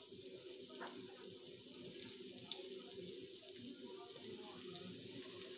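Sliced onions sizzling steadily in hot oil in a frying pan, with a few light clicks of a knife on a cutting board.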